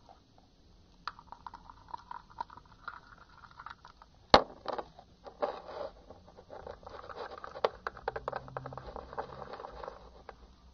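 A pen stirring thickening soft-soap-and-salt slime in a small plastic bowl: irregular sticky clicks and scraping that grow denser in the last few seconds, with one sharp knock about four seconds in.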